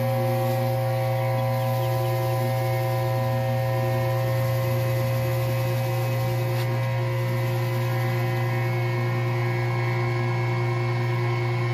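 2000 PSI electric pressure washer running with a surface-cleaner disc on concrete: a steady, loud motor-and-pump hum over the hiss of water jetting from the disc's two rotating tips.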